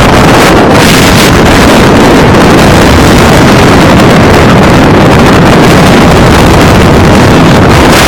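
Wind buffeting a phone's microphone: a loud, steady rushing rumble.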